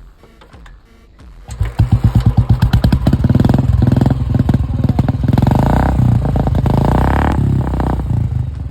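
Old Royal Enfield Bullet 350 single-cylinder engine, its exhaust thumping in slow, distinct beats from about a second and a half in. It is then revved, the beats running together and rising in pitch, before dropping back near the end.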